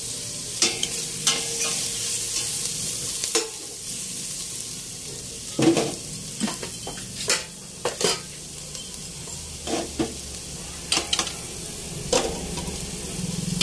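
Red onion, garlic and ginger sizzling in hot oil in a stainless steel pot while being sautéed, with a utensil scraping and clicking against the pot at irregular moments as the aromatics are stirred.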